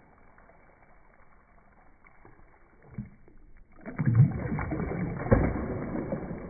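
Water splashing and sloshing as a glowing jellyfish shape moves at the surface. It starts abruptly about four seconds in, after a quiet stretch broken by a single knock, with two louder splashes within the next second and a half.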